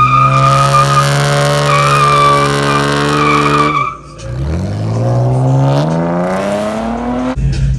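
Chevrolet Camaro doing a burnout: the engine is held at steady high revs while the rear tyres squeal and smoke for nearly four seconds. Near the four-second mark the revs drop off briefly, then climb again in a long rising rev.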